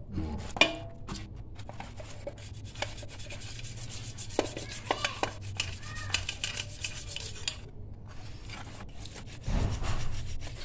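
Rubbing and scraping on a motorcycle's aluminium engine case cover, working off paint softened with thinner, with scattered small clicks and knocks as the metal parts are handled and shifted.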